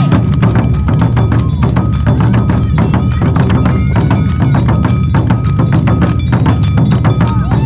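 Awa Odori festival percussion: large hand-held taiko drums and smaller drums beaten in a fast, steady rhythm, with a metallic ringing over the drumming.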